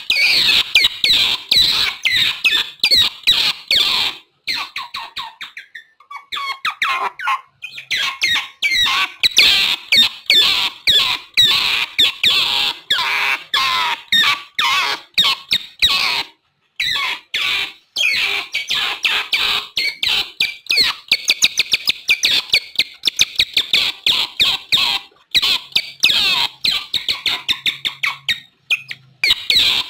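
Otters calling: rapid, high-pitched chirps and squeaks in dense runs, broken by a few short pauses.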